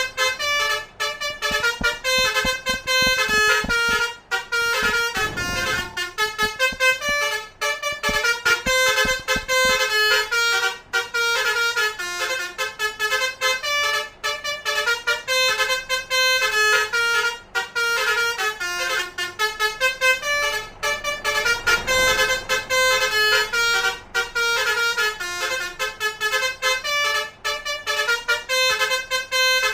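Basuri 'telolet' multi-tone horn playing a fast melody of short notes that step up and down in pitch, with a low pulsing underneath for roughly the first third.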